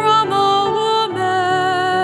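A woman singing a slow, gentle hymn to grand piano accompaniment, moving through a few held notes.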